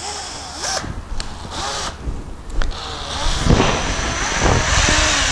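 Cordless drill-driver driving a screw into wood. It starts in a few short bursts of the motor, then runs steadily from about three seconds in as the screw goes down.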